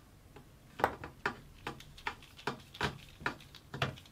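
Hand screwdriver clicking as it tightens a small bolt into a nylock nut. About a second in, a regular run of sharp clicks begins, around two or three a second.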